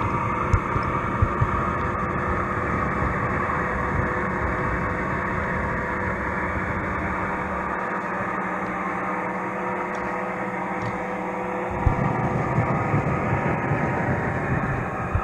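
Model trains running on the layout track: a steady electric motor hum and wheel rumble with occasional sharp clicks. The low rumble eases off, then swells again about twelve seconds in.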